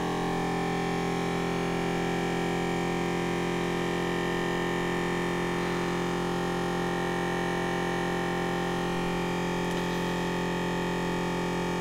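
Vacmaster VP200 chamber vacuum sealer's vacuum pump running, a steady hum with several tones, as it draws the chamber down to a deep vacuum: deep enough that water in the bag inside is boiling.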